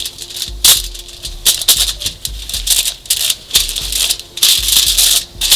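Aluminium foil crinkling and paper towels rustling in irregular bursts as gloved hands pat steaks dry on the foil, with soft dull thumps from the pressing.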